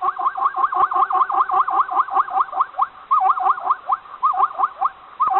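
An animal calling in a rapid series of short, rising squealing notes, about five a second, in runs broken by brief pauses.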